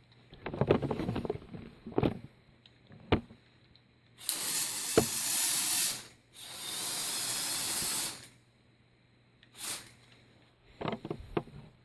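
LEGO Technic tracked loader running in two spells of about two seconds each, its electric motors and plastic tracks giving a loud hissing rush. Before these spells come scattered clicks and plastic rattles.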